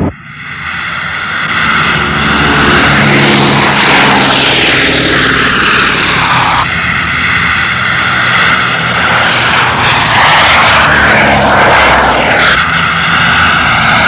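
Radial piston engines of B-29 Superfortress bombers at takeoff power, a loud, steady drone that swells up over the first two seconds. As the planes pass low, the pitch falls, about four seconds in and again near the end.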